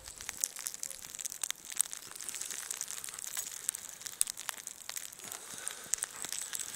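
Footsteps crunching through snow, an irregular run of sharp crackles and small crunches with no steady rhythm.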